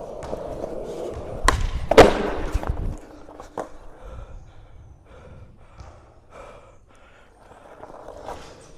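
Skateboard wheels rolling on pavement, then two sharp clacks of the board about one and a half and two seconds in, the second the loudest. After about three seconds the rolling stops and it goes much quieter.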